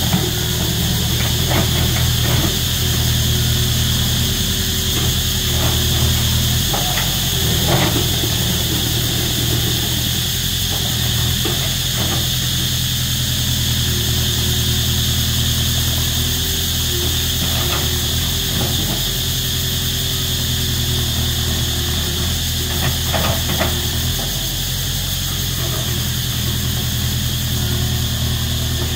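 Komatsu tracked excavator's diesel engine running, with scattered knocks and clanks from the machine at work. A steady, loud buzz of cicadas runs over it.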